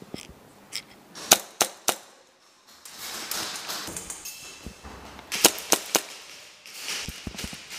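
Airsoft guns firing: sharp single cracks, three in quick succession a little over a second in and another quick run of about three around five and a half seconds in.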